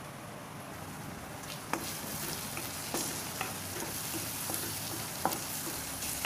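Tomato-onion masala sizzling in hot oil in an iron kadhai, stirred with a spatula that scrapes and knocks against the pan a few times. The sizzle grows louder about a second and a half in.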